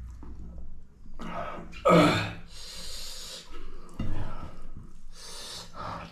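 A man breathing hard and noisily while eating, with hissing breaths and a short falling vocal gasp, the loudest sound, about two seconds in.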